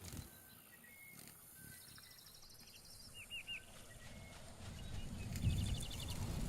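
Birds calling in an outdoor ambience: short whistled notes and quick trills. Under them a low rumble builds and grows louder in the second half.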